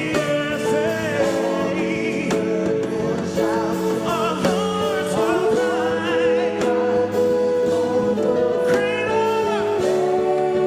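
Gospel worship song: voices singing held, gliding lines over sustained accompaniment chords, with no break.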